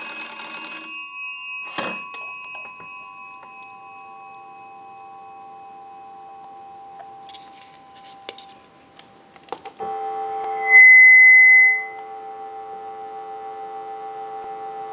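The twin gong bells of an AT&T wooden wall crank telephone ring under an analyzer's ring signal, stop about a second in and ring on faintly. Clicks follow as the receiver is lifted, then a brief loud high beep and a steady dial tone heard from the receiver through an amplified pickup.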